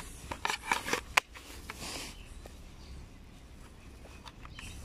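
A white hard slide-on case being pulled off a Casio fx-991CE X ClassWiz scientific calculator: rubbing and scraping, with a sharp click about a second in. Then quieter handling of the calculator.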